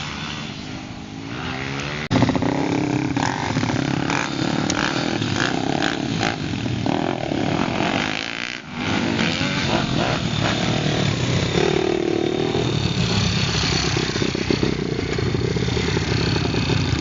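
Small dirt-bike engines running and revving, the pitch rising and falling with the throttle, with sudden changes about two and eight and a half seconds in.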